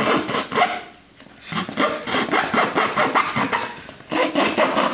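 A thin blade cutting through corrugated cardboard in quick, scratchy back-and-forth strokes. There are short pauses about a second in and again about four seconds in.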